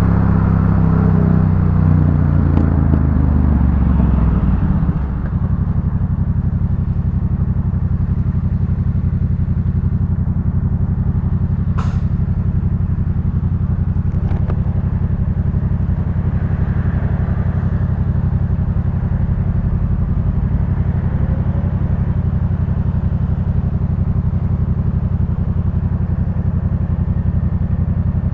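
Yamaha MT-07's 689 cc parallel-twin engine through a Jeskap K4 full exhaust, its pitch falling as the bike slows over the first few seconds, then idling steadily. One sharp click about twelve seconds in.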